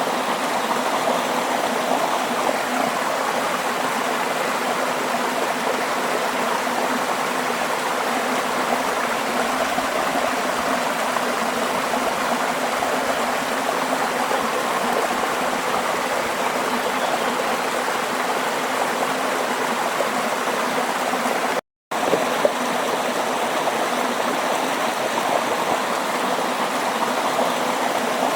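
Flowing stream water, a steady rushing and babbling, with a short dropout to silence about three-quarters of the way through.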